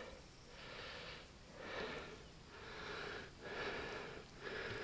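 A man breathing heavily, close to the microphone: several soft, slow breaths in and out.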